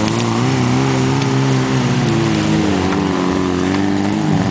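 4x4 SUV engine running hard at steady high revs, its pitch wavering slightly as it labours to pull through mud.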